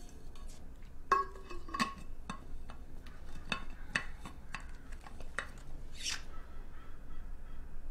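Clicks and metal clinks of a stainless steel Hydro Flask water bottle being handled, its lid fiddled with, a dozen or so knocks, the first ringing briefly. A short hiss about six seconds in.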